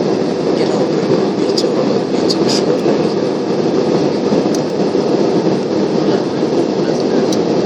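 Steady cabin roar of an Airbus A320-family airliner's jet engines and rushing air as it climbs after takeoff, heard from a window seat over the wing. A few faint light clicks are scattered through it.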